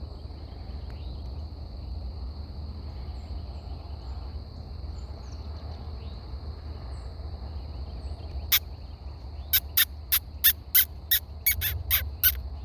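Insects droning steadily in a high, even band. From about two-thirds of the way in comes a series of about ten sharp clicks, roughly three a second, louder than the drone.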